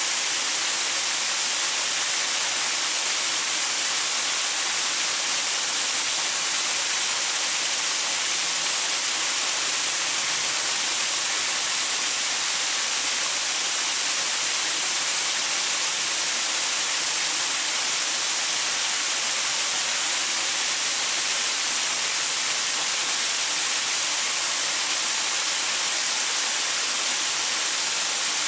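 Small waterfall splashing steadily over rocks: an even, unbroken hiss of falling water, strongest in the high range.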